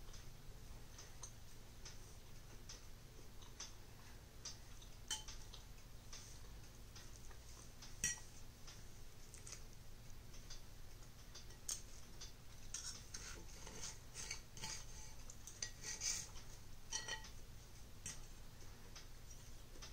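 Metal fork and knife clinking and scraping on a ceramic plate while cutting a pancake: scattered light clicks, busiest in the second half, with one sharper clink about eight seconds in.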